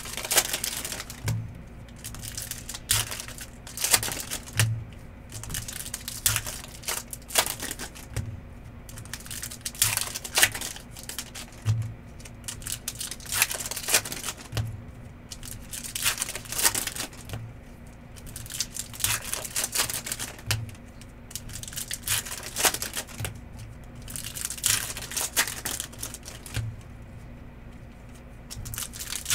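Trading cards and their pack wrappers being handled on a table: a steady string of irregular sharp clicks and slides as the cards are flicked through, with some crinkling and occasional soft thumps.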